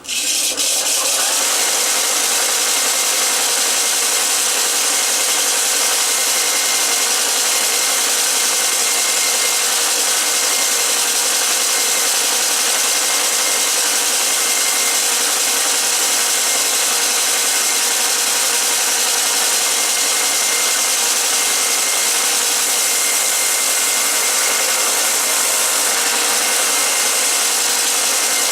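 Belt sander with a coarse 50-grit belt grinding a red alder handle blank: a loud, steady rasp over the motor's hum.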